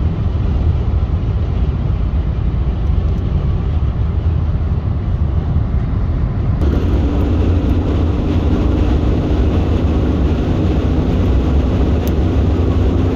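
Steady cabin noise of a BMW 530d at motorway speed: low road and engine rumble. About halfway through the sound turns brighter and a steady hum joins in.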